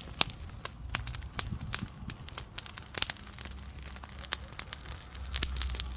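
Large bonfire of piled garden debris crackling, with irregular sharp pops and snaps over a low rumble.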